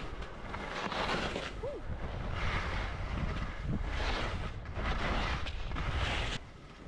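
Skis scraping and hissing over soft, chopped-up snow, swelling with each turn about every second and a half, under a steady rumble of wind on the microphone. The scraping drops away near the end.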